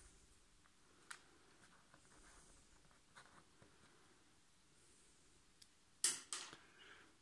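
Small disc magnets and copper and zinc discs clicking against each other as they are handled and stacked by hand, with a few faint ticks and two sharp clicks close together near the end, the loudest.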